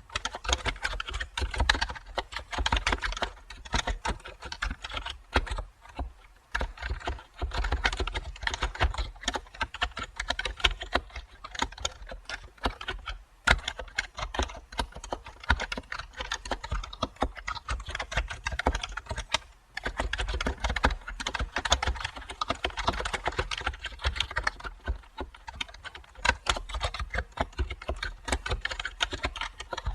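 Continuous typing on a computer keyboard, a fast, even run of key clicks with brief pauses, three times.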